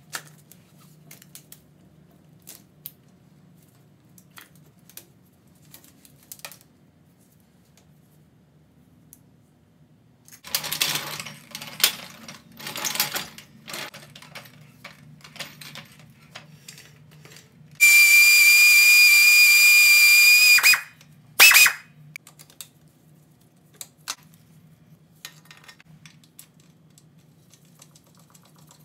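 Workshop work on a dirt bike: scattered clicks and clatter of tools and parts being handled, then a power tool running with a loud, steady high-pitched whine for about three seconds past the middle, followed by a brief second burst.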